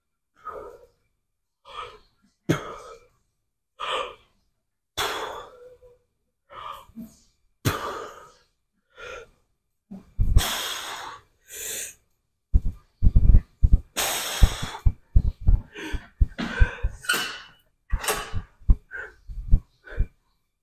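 A man breathing hard through a set of leg exercises, with forceful breaths about once a second. From about halfway the breaths come faster and louder, as the effort builds.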